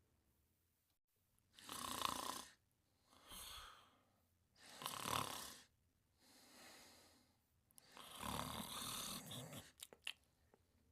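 Cartoon character snoring in a slow rhythm: three loud snores, each of the first two followed by a softer breath out.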